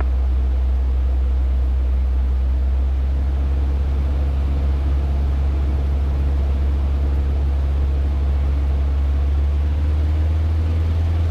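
Cessna 150's four-cylinder Continental O-200 engine and propeller droning steadily at a constant power setting in flight.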